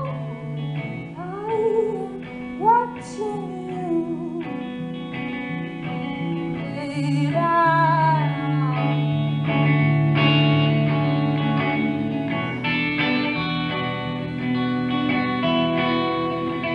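A woman singing with her own electric guitar accompaniment; the voice comes in short phrases and stops about nine seconds in, leaving the guitar playing on alone.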